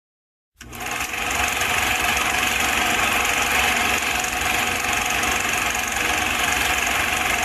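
A machine running with a steady mechanical whirr, cutting in abruptly about half a second in.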